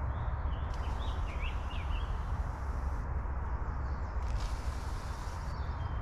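Outdoor ambience: a steady low rumble, with a few faint bird chirps about a second in.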